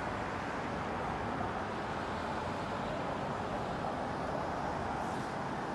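Steady distant city traffic noise heard from high above the street: an even hiss and rumble with no separate events.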